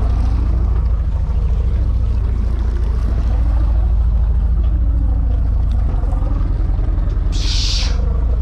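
Fishing boat's engine running with a steady low drone, and a brief hiss near the end.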